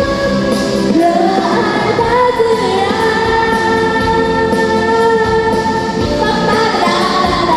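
A song: singing over pop-style backing music, with notes held for about a second each.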